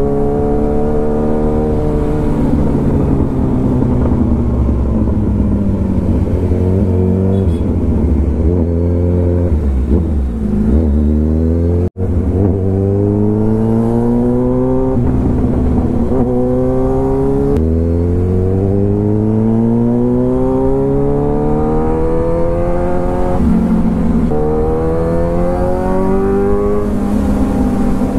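Yamaha R15 V4's single-cylinder engine accelerating, its revs climbing steadily and dropping back at each upshift, several times over. The sound cuts out for an instant about twelve seconds in.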